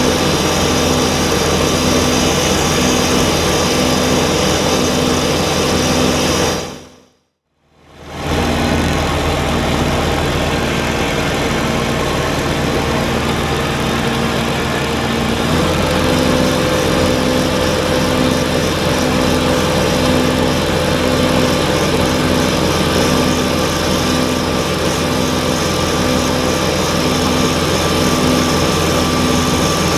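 Kubota BX23S compact tractor's diesel engine running steadily under load with its front-mounted snowblower working, with a regular pulsing about once a second. The sound fades out briefly about seven seconds in, and a higher steady tone joins about halfway through.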